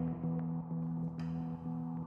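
Ambient background music with sustained, ringing tones and soft note changes.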